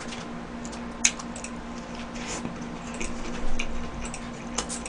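Close-miked chewing of a mouthful of burger: soft wet squelches and small irregular mouth clicks, with one sharper click about a second in.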